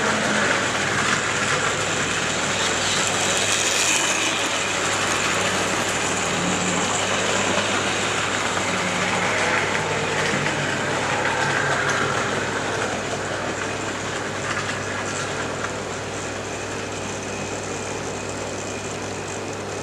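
Hornby model Hall Class locomotive running along its track: a steady mechanical running noise from the small motor and wheels on the rails. It grows a little quieter after about thirteen seconds.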